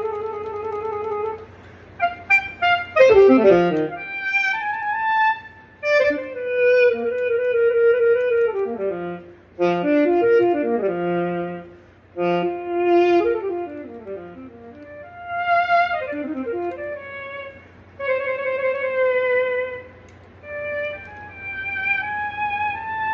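Yamaha YDS-150 digital saxophone playing an alto sax voice: held notes with vibrato, a fast downward run about three seconds in, then scale runs up and down the range with short pauses between phrases. The notes sound, showing the DIY repair of the sticking B and G-sharp keys has worked.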